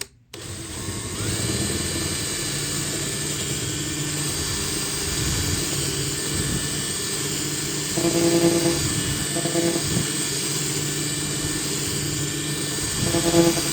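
Small electric drill with a 1/8-inch bit drilling out the rivet of a die-cast toy car. The motor spins up about a second in and then runs steadily. It grows louder and rougher around the middle and again near the end, as the bit bites into the rivet.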